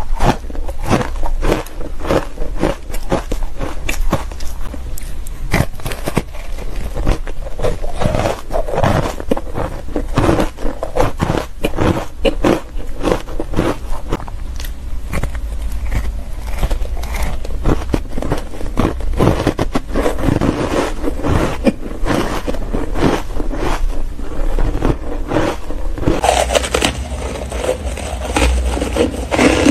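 Close-miked crunching and chewing of matcha-powdered shaved ice, a dense, continuous run of crisp crackling crunches. Near the end the crunching turns brighter and crisper as frozen chunks are bitten.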